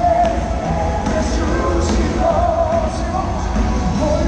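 Live Spanish-language Christian worship music over a large arena's sound system: a sung melody over a strong bass line and drums.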